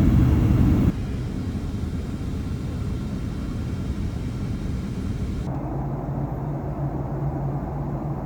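Aircraft noise in a few cut-together stretches. A loud low rumble cuts off suddenly about a second in, then comes a quieter steady rumble, and from about five and a half seconds on there is a steady low hum.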